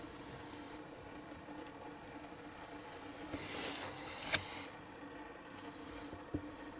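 Small handling noises at a workbench: a brief rustle ending in a sharp click, a few faint ticks, then another click, over a steady low hum.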